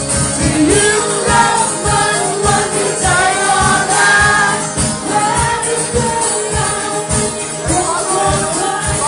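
Live band music: a steady drum beat about twice a second under a bending melody line.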